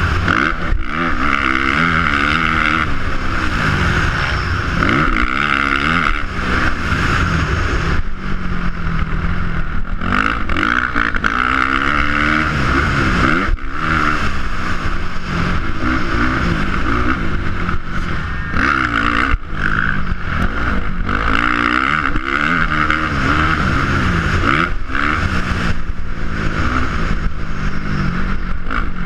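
Motocross dirt bike engine revving hard and falling off again and again as the rider accelerates, shifts and brakes around the track, heard close up from on board.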